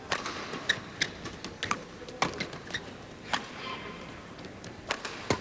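Badminton rackets striking the shuttlecock in a fast doubles rally: about ten sharp, short hits at uneven intervals, a fraction of a second to about a second and a half apart.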